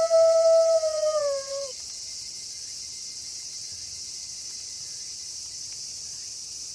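Wolf howl held on one steady pitch, bending downward and dying away about a second and a half in, over a steady high hiss of night insects.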